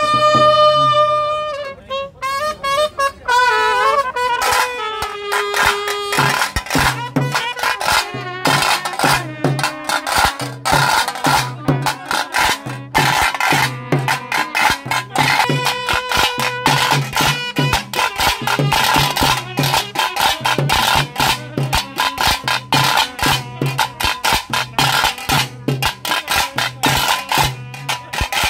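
Drum-band music for a pili vesha tiger dance: fast, dense drumming over a repeating low beat. It opens with a long held note that ends after a second or so and falls away in stepped notes over the first few seconds.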